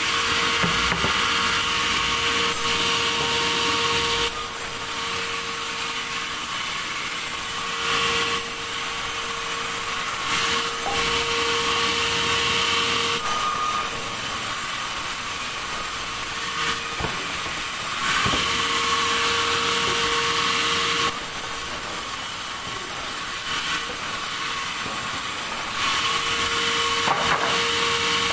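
Sawmill saw running and cutting through a log: a continuous high-pitched mechanical sound whose loudness steps up and down every four to five seconds as the load on the blade changes.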